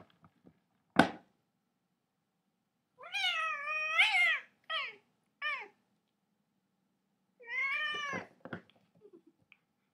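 Domestic cat meowing: a long, wavering meow about three seconds in, two short meows right after, and another long meow near the end. A single sharp knock sounds about a second in.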